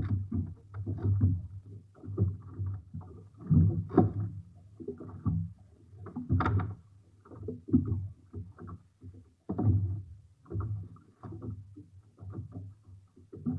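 Water slapping and splashing against the hull of a small fishing boat on a choppy sea, in irregular bursts every second or two, with wind buffeting the microphone.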